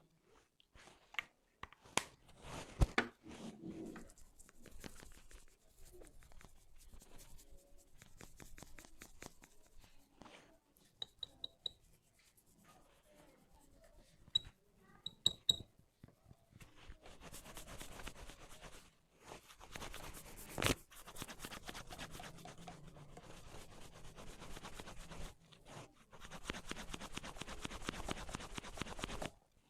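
Hands rubbing, twisting and scrunching hair in a hair-cracking massage, making dense rustling and crackling noise with many sharp clicks.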